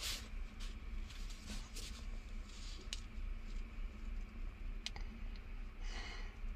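A few faint, sharp clicks and soft taps from buttons being pressed on a small handheld number game, heard inside a closed cupboard.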